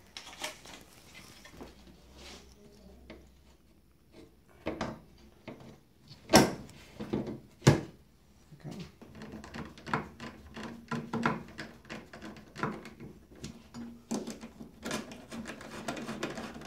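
Sheet-metal monitor frame and panel parts being set down and handled on a tabletop: scattered knocks and clunks, the two loudest about six and eight seconds in, then a run of small metal clicks and rattles.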